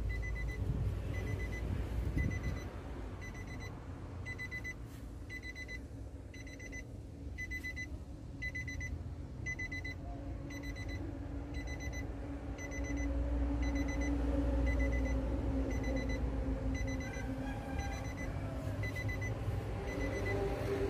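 A vehicle's electronic warning chime beeping at one pitch, about once a second, without stopping. Under it runs a low rumble that gets louder about two-thirds of the way through.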